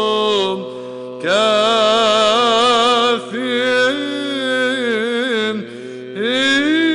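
A solo male voice chants a Byzantine hymn in the sixth tone, in long gliding melismatic phrases, over a steady held drone (ison). The voice drops away briefly twice while the drone carries on.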